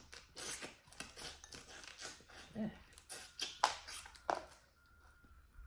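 Scattered clicks and crackles of boiled crawfish and blue crab shells being cracked and peeled by hand, mixed with chewing and lip-smacking, with two sharper cracks past the middle.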